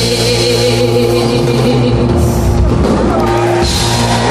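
Live band holding the closing chord of a song, with a drum fill in the second half and a cymbal crash near the end as the song finishes.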